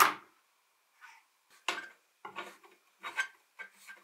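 An épée being handled on a wooden workbench, metal on metal and wood. A sharp knock right at the start rings briefly, then about six short clinks and scrapes follow at uneven intervals.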